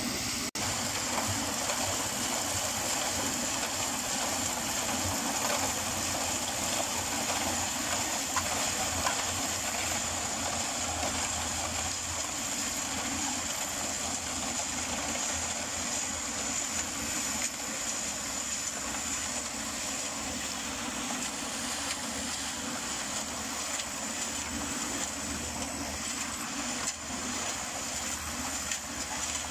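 Portable drum concrete mixer running steadily, its drum turning, while wet concrete slides out of the drum and down a metal chute.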